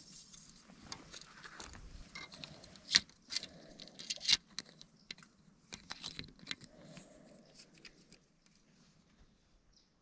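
Small hard objects clicking and rattling against each other as they are handled, in quick irregular clusters, with the sharpest clicks about three and four seconds in. The sound dies away after about eight seconds.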